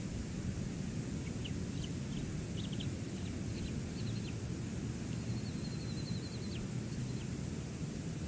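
Faint, high, thin bald eagle chirps, scattered at first and then a quick chittering run of about a second and a half, while a chick is being fed at the nest. Under them is a steady low rumble of wind and sea on the cam's microphone.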